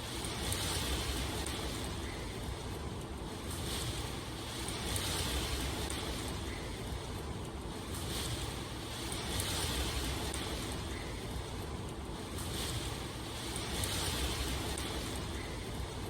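Steady rushing water ambience that swells and eases every two or three seconds.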